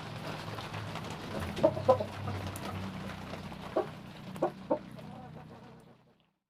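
Broody hen clucking: a few short calls about two seconds in, the loudest, and three more near the end, over a steady low hum.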